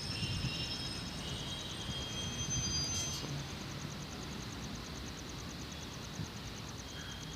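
Outdoor trackside ambience: a steady low rumble with a few thin high chirps in the first three seconds and a steady high pulsing buzz.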